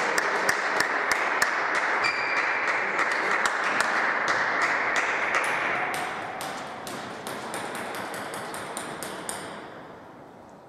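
Table-tennis ball clicking as it bounces, several sharp ticks a second, some with a brief high ring. Under it is a loud, even rush of hall noise. The clicks stop near the end as the noise dies away over the last few seconds.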